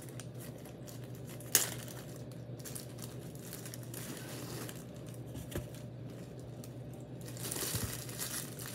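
Plastic zip-top bag being pulled open and handled, crinkling, with one sharp snap about a second and a half in and a louder rustle near the end as the bread is slid out.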